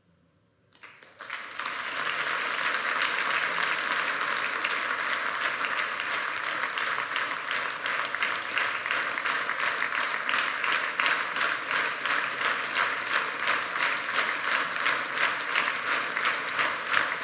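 Audience applauding in a hall, starting suddenly about a second in and holding steady. In the second half it turns into rhythmic clapping in unison.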